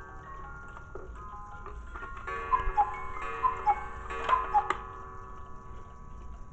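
Cuckoo clock calling the hour three times, each call a falling two-note cuckoo about a second apart, over sustained ringing tones, with its ticking underneath.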